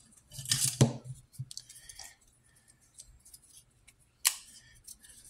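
Folding knife being handled: a rustling, scraping burst about half a second in, scattered light clicks, and one sharp metallic click about four seconds in.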